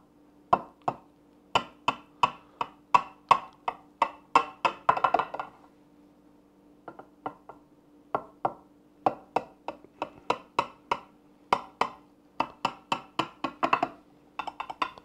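A chef's knife chopping down through a soft, syrup-soaked cake and tapping the bottom of a glass baking dish: short sharp taps, about two to three a second, in runs with brief pauses.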